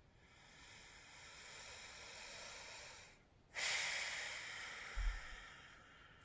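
A man breathing through his nose: a slow breath in for about three seconds, a brief pause, then a louder long breath out that fades away, with a brief low thump about five seconds in.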